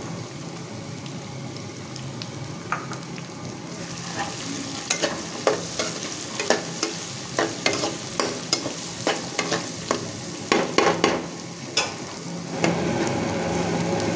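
Chopped onion frying in hot oil in a nonstick wok, sizzling steadily, while a metal spatula scrapes and clacks against the pan as it is stirred. The clacks come thick and fast from about four seconds in, and the sizzle grows louder near the end.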